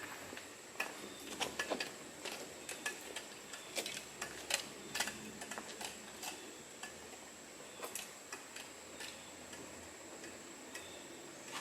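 Footsteps on a dirt-and-rock trail: an irregular scatter of light clicks and crunches.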